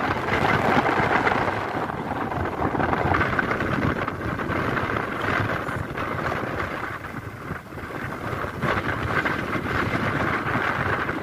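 A vehicle travelling along a road, its running noise mixed with wind buffeting on the microphone as a steady, unbroken rush.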